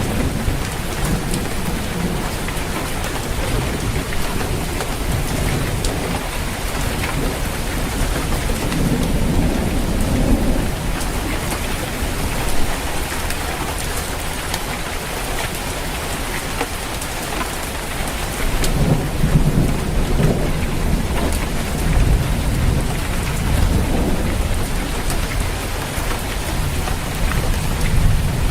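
Steady heavy rain drumming on a roof, with low rolling thunder rumbling about a third of the way in and again through the last third.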